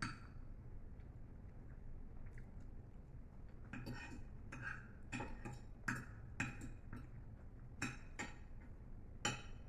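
Knife and fork clinking and scraping against plates as food is cut and picked up: a single clink at the start, then a string of sharp, irregular clinks from about four seconds in.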